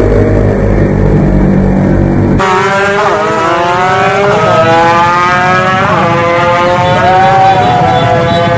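A deep engine rumble for about two and a half seconds, then an abrupt change to the high-pitched whine of two-stroke drag bikes accelerating hard. The pitch climbs steadily, with brief dips at the gear changes.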